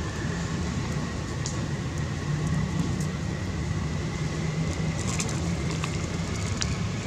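Steady low outdoor background rumble, with a faint high steady tone and a few light clicks near the end.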